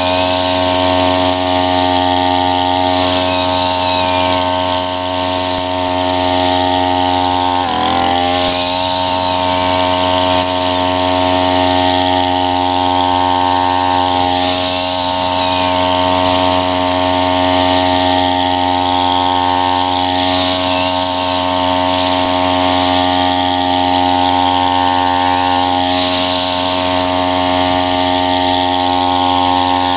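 Tabata 32 cc two-stroke backpack brush cutter running at high revs, its eight-line nylon head cutting tall grass. A hiss swells every five or six seconds as the head sweeps through the grass. The engine note dips briefly and recovers about eight seconds in.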